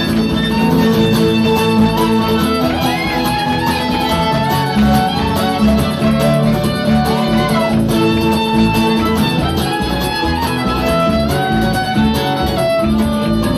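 Acoustic string band playing an instrumental passage live: a fiddle plays sliding notes over strummed acoustic guitars.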